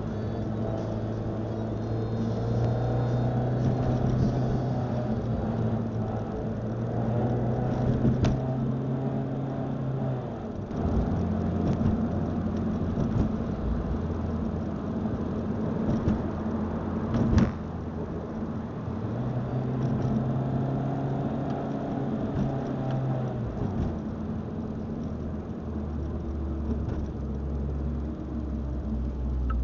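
Car drivetrain running while driving, with a steady pitched hum that holds for several seconds, drops away and comes back. The owner suspects it may be a transmission noise. A couple of sharp clicks partway through.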